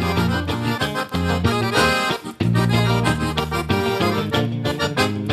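Accordion-led gaúcho band music over a steady bass, an instrumental passage with no singing, briefly dipping about two seconds in.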